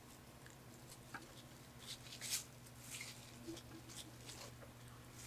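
Steady hum of an electric fan, with a few short, soft crackles of donuts being handled and eaten between about two and four and a half seconds in, the loudest a little after two seconds.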